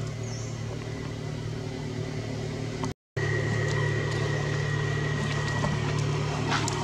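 A steady low mechanical hum, like a motor running, with a thin steady high whine. It breaks off for a split second about three seconds in, then carries on.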